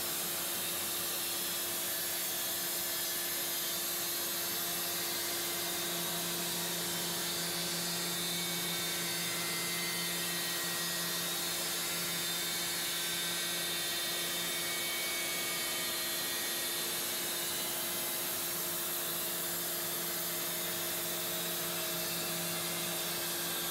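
Horizontal band sawmill running and cutting along a large log: a steady machine whine with sawing noise, a deeper hum coming in about six seconds in.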